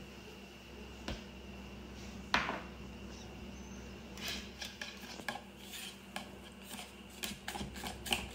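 Wire balloon whisk beating flour into pancake batter in a plastic mixing bowl, the wires scraping and clicking against the bowl in quick repeated strokes from about four seconds in. Before that, two single knocks, the second louder, about a second and two seconds in.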